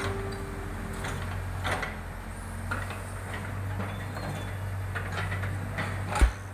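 Backhoe loader's diesel engine running with a steady low hum, with scattered clanks and knocks and a heavy thump near the end.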